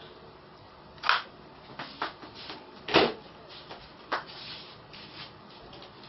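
Sharp, irregular plastic knocks and clacks of a homemade PVC airgun being handled and moved about, the loudest knock about three seconds in, with others about one, two and four seconds in.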